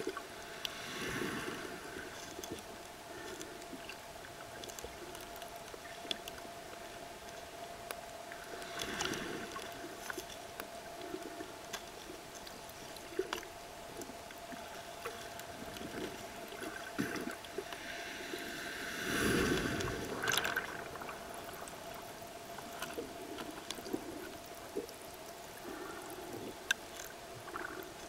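Underwater surf on a shallow reef flat: waves breaking just overhead swell and gurgle past in three surges, about a second in, around nine seconds and loudest around twenty seconds. Under them are a steady faint tone and scattered sharp clicks.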